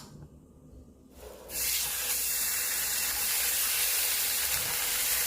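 Food sizzling in a hot frying pan, starting suddenly about a second and a half in and then hissing steadily.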